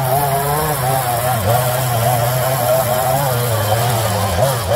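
Echo CS-3510 two-stroke chainsaw running at high revs while carving into wood, its engine pitch wavering and dipping briefly as the bar bites and eases off.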